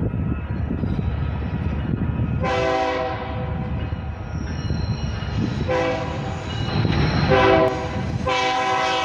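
Air horn of an approaching BNSF freight locomotive blowing a multi-note chord in the grade-crossing pattern: two long blasts, a short one, then a final long one that begins near the end. A steady low rumble runs underneath.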